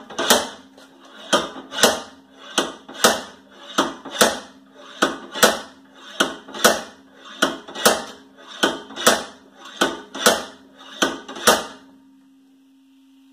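Steady series of hammer blows, about two a second, on a stuck rear wheel hub of a 2010 Toyota Prius being driven off; the blows stop near the end.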